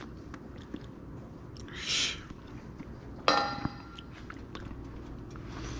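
Quiet mouth and eating sounds of someone tasting homemade mayonnaise, with small scattered clicks. A short hiss comes about two seconds in, and a single sharp, ringing clink a little past three seconds.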